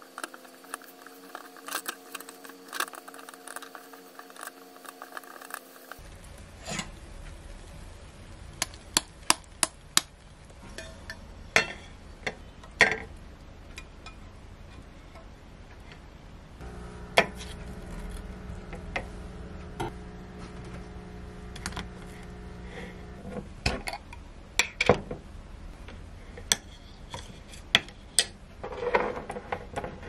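Kitchen clatter: a silicone spatula scraping and tapping on a square nonstick egg pan and a ceramic plate as scrambled eggs are stirred and slid out, with scattered sharp clinks and knocks of dishes. A steady hum runs underneath for the first few seconds and again through a stretch in the middle.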